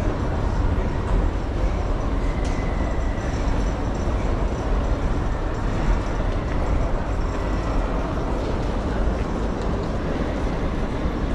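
Steady rumble of a large railway station, with trains at the platforms, and a brief sharp click about two and a half seconds in.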